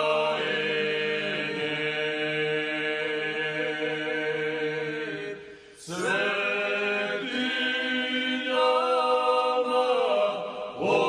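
Slow, chant-like singing of the series theme, with long held notes in two drawn-out phrases and a brief break just past the middle.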